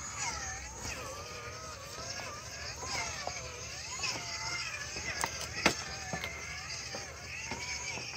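RC crawler's brushless outrunner motor (Roto Star R5500 1600kv on a Castle Sidewinder 4 ESC) whining, its pitch rising and falling with the throttle as the truck crawls over rocks. Sharp knocks of tires and chassis on stones come in between, the loudest a little over halfway.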